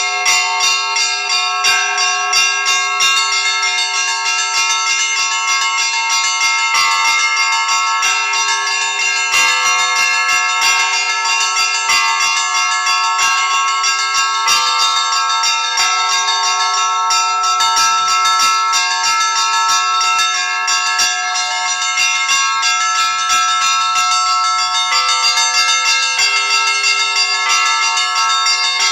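Russian Orthodox church bells pealing without pause: smaller bells are struck rapidly, many times a second, over the lasting ring of larger bells.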